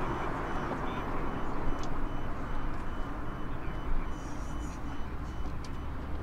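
Distant city traffic and an elevated U-Bahn train crossing a bridge: a steady wash of noise, with a few faint clicks and a short high chirp about four seconds in.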